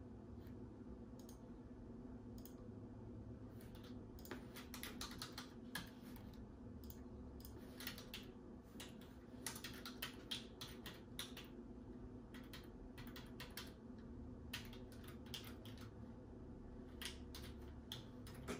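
Typing on a computer keyboard in short runs of keystrokes, with pauses between them, over a steady low hum.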